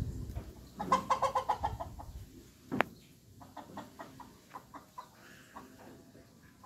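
Chickens clucking: a quick run of clucks about a second in, one sharp, louder cluck a little before the middle, then softer, scattered clucks.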